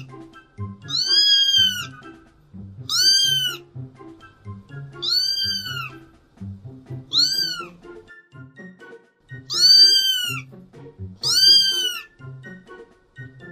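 A cat meowing repeatedly: six high-pitched meows, each rising then falling, about two seconds apart, over background music.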